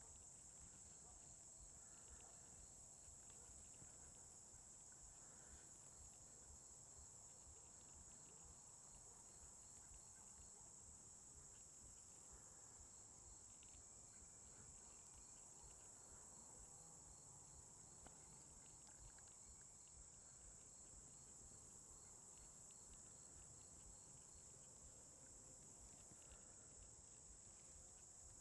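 Faint, steady high-pitched chorus of insects, with a fainter, regular ticking insect call beneath it that stops near the end.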